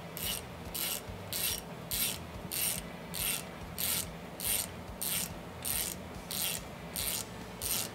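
Hand ratchet wrench clicking as a bolt is run down on a Kawasaki jet ski engine: about a dozen short ratcheting strokes in a steady rhythm, roughly three every two seconds.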